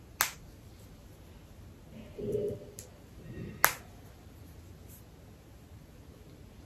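Two sharp clicks about three and a half seconds apart, the second the louder, as a child's t-shirt is handled. A brief low murmur comes between them, against quiet room tone.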